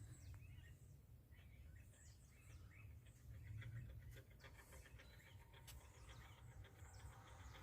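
Faint birds chirping: scattered short, high chirps over a low steady rumble.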